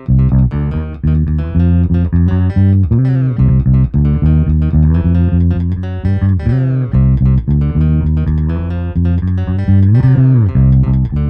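Headless electric bass guitar played in a busy run of plucked notes, with a string bend that rises and falls back about ten seconds in.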